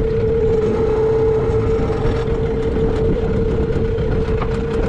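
A small boat's motor running steadily at low speed: a constant hum over a low rumble.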